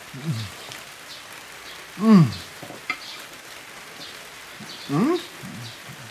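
A man's short wordless "hm" sounds while he eats: a faint one at the start, a loud falling one about two seconds in, and a rising one near five seconds. There is a single click just before three seconds, over a steady hiss with faint high bird chirps.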